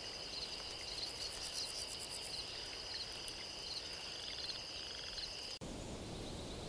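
Insect chorus trilling steadily at two high pitches, with a short chirp repeating every half second or so. It cuts off suddenly near the end, leaving a soft, even rushing noise.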